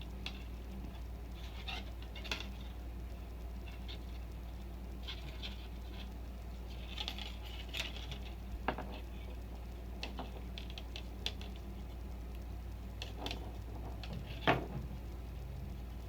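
Scattered light clicks and taps of small parts of a nitro engine's pull-start assembly being handled and fitted, with one louder knock near the end, over a steady low hum.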